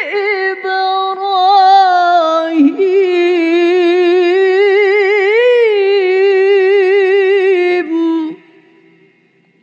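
A woman reciting the Qur'an in melodic tilawah style, holding long, ornamented notes with a wavering vibrato. The phrase ends a little after eight seconds in.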